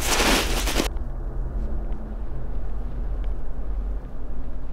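A brief rush of rustling noise stops about a second in, leaving the steady low rumble of a vehicle engine idling.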